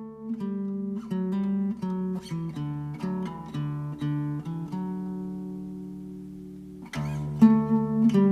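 Background music on acoustic guitar: single plucked notes that gradually fade, then fuller strumming starting about seven seconds in.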